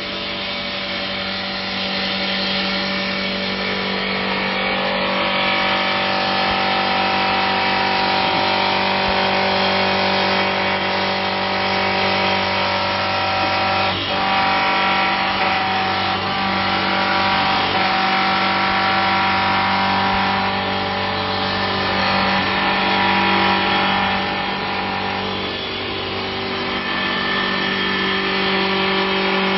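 Three-spindle CNC wood lathe with a rotating-spindle carving head, turning and cutting three wooden baluster columns at once. A steady motor and spindle hum runs under the scraping noise of the cutters on the spinning wood.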